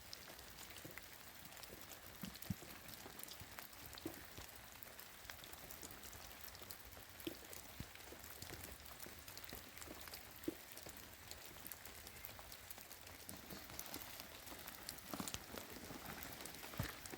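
Steady rain falling, faint, with scattered individual drops ticking sharply on nearby surfaces.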